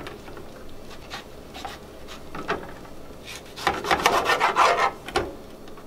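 A kitchen knife slicing through tomatoes and scraping on a cutting board: short, irregular cutting strokes that come thicker and louder past the middle.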